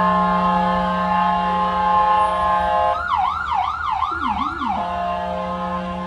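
Ambulance siren: a steady drone of held tones, then about halfway through a fast yelp that sweeps up and down about four times in under two seconds before the steady tone returns.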